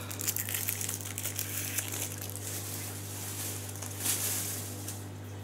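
Light crinkling and small clicks of handling noise close to the microphone, with a brief louder rustle about four seconds in, over a steady low hum.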